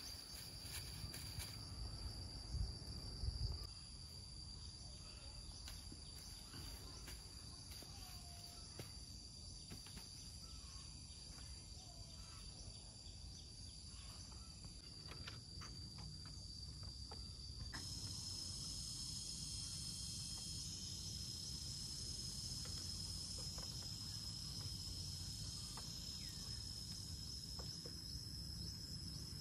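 Insects chirring in a steady, high-pitched drone, with a few low thumps about three seconds in. Partway through, the drone steps a little higher and louder.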